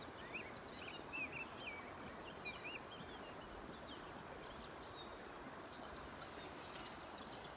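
Steady rush of flowing brook water, with a small bird calling in short, quick up-and-down chirps through the first three seconds or so.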